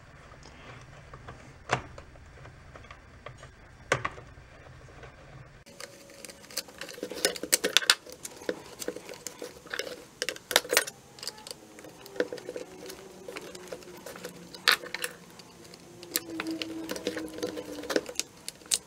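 Small clicks and taps of a long metal tool and plastic parts inside a chainsaw's plastic rear handle as a screw is fished back into its threads. Only a couple of clicks at first, then a busy run of irregular clicks from about a third of the way in.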